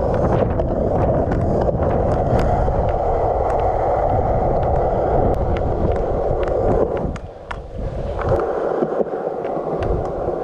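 Hard urethane skateboard wheels rolling over a concrete skate park: a steady rumble with frequent small clicks, and wind on the microphone. The rumble drops away briefly about seven seconds in, then picks up again.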